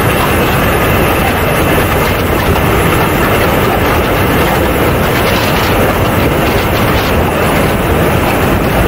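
Steady, loud rush of airflow and engine noise from a radio-controlled A-10 Warthog model jet in flight, heard from a camera under its belly with wind buffeting the microphone.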